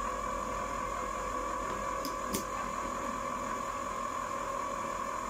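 Countertop ice cream maker running with a steady hum as it churns. Two light clicks a little after two seconds in.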